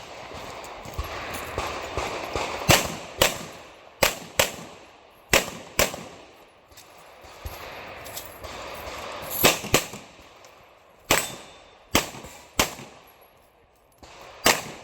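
A firearm fired about a dozen times at irregular intervals, the shots often in pairs about half a second apart with pauses of one to two seconds between them.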